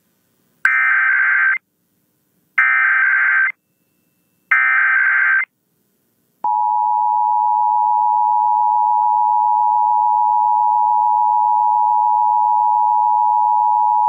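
Emergency Alert System required weekly test received off AM radio: three one-second bursts of SAME header data, a warbling digital screech, about two seconds apart, then about six and a half seconds in the steady two-tone EAS attention signal (853 and 960 Hz) begins and holds.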